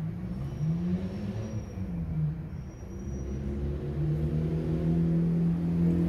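A motor vehicle engine running. Its pitch rises and falls over the first two or three seconds, then holds steady as it grows louder.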